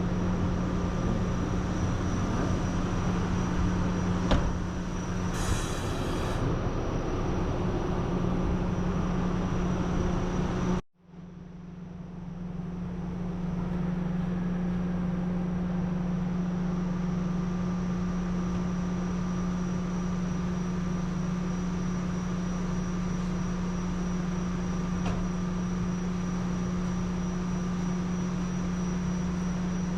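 Steady low mechanical hum over a noise background, broken by a brief dropout to silence about eleven seconds in.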